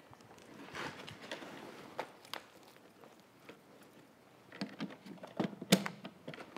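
A hose coupling being fitted to the rear port of a lifting-bag control unit: handling rustle and a few scattered clicks, then a cluster of sharper clicks in the second half, the loudest about a second before the end.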